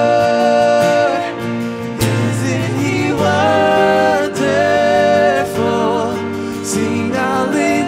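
Worship song: the word "Savior" sung at the start, then long held sung notes over instrumental accompaniment.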